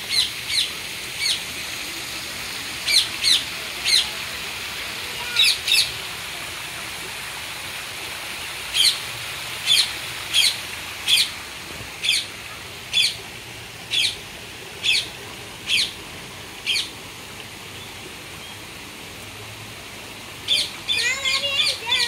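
Birds chirping in an aviary: short, sharp, high chirps, often in pairs, about once a second, with a pause a few seconds before the end and then a quicker flurry of chirps.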